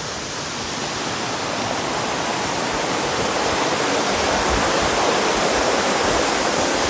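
Rushing water of a forest stream running under a footbridge: a steady, dense rush that grows a little louder.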